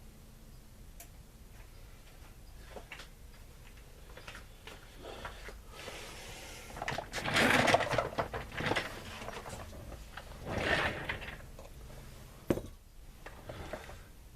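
Handling noises: rustling and scattered clicks and knocks, loudest in two stretches around the middle, with one sharp click near the end.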